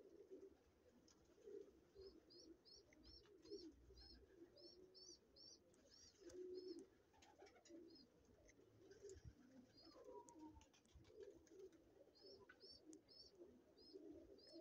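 Faint cooing of domestic pigeons, with a small bird's quick runs of high chirps over it.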